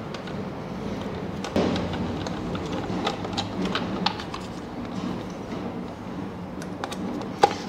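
Scattered small clicks and taps of a Torx T25 screwdriver turning out screws on a motorcycle's plastic side panel, with a somewhat louder knock about a second and a half in, over steady background noise.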